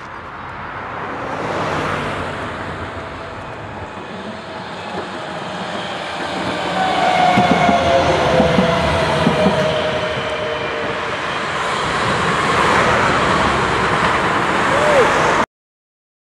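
A Düwag articulated tram passing close by on street track: wheels running on the rails with whining tones that slide slowly down in pitch, loudest as it goes past. A road car passes about two seconds in, and the sound cuts off suddenly near the end.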